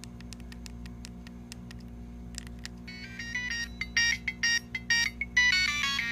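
Siemens A70 mobile phone playing one of its built-in ringtones, a quick electronic melody of stacked notes starting about three seconds in and getting louder. Before it comes a run of sharp clicks, and a steady low hum lies underneath throughout.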